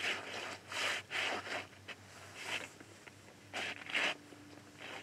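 Fishing line being hauled in hand over hand from a hole in the ice, with a fish hooked on the end: a run of short swishes at uneven gaps of about half a second to a second, one for each pull of line through the hands.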